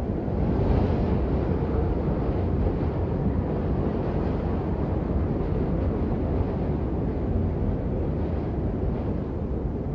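Strong blizzard wind blowing steadily with a deep rushing roar, swelling in a gust about a second in.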